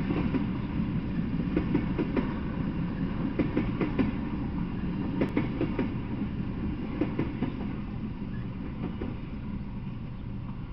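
Freight train of tank cars rolling past, wheels clicking and clacking over the rail joints. The sound fades over the last few seconds as the end of the train goes by.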